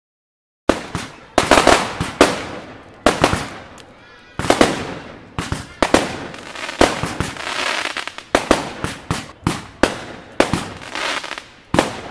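Aerial fireworks going off in a rapid run of sharp bangs, about two a second, each one fading away, beginning about a second in, with a stretch of hissing in the middle.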